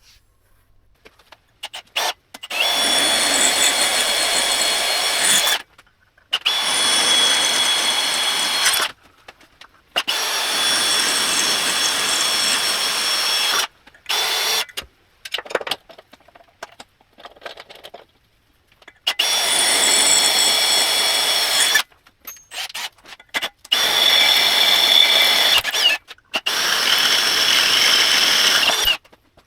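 Electric power drill run in six bursts of two to four seconds, each with a steady high whine, with short pauses and small clicks and knocks between them.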